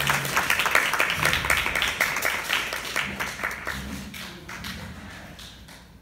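Applause from a small crowd: dense hand clapping that thins out and fades away over the second half.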